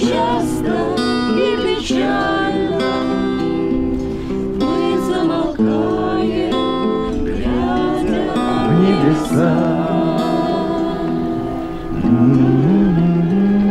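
Acoustic guitar strummed under a slow sung melody, with long held notes that waver; a final long note is held from about three-quarters of the way through.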